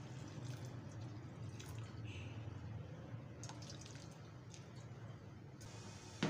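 Water trickling faintly and steadily from a tall steel container into an aluminium cooking pot, with a short sharp click near the end.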